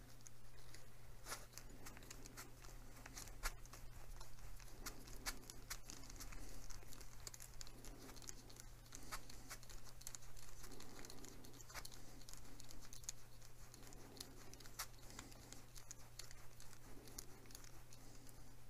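Small hand screwdriver driving a tiny screw into a plastic model part: faint, irregular clicks and scratches of the bit and screw turning, with soft rustling from the fingers and a steady low hum underneath.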